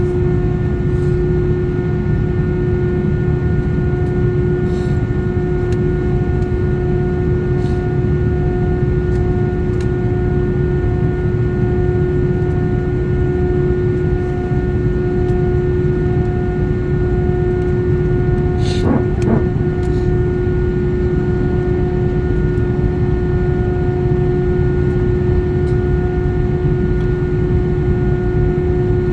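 Cabin noise inside an Airbus A319-132 taxiing after landing: its IAE V2500 turbofans idling under a steady low rumble with constant hums. A brief falling squeak comes a little past two-thirds of the way through.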